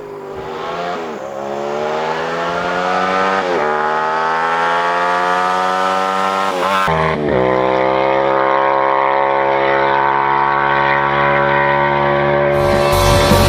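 Yamaha MT-07's parallel-twin engine through a full 2-into-1 exhaust with a GP tip, accelerating hard and shifting up through the gears. The note climbs, drops briefly at each of three upshifts, then holds high and rises slowly. Rock music comes in near the end.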